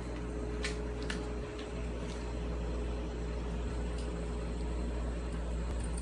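Steady low mechanical hum, with a few faint clicks, mostly in the first two seconds.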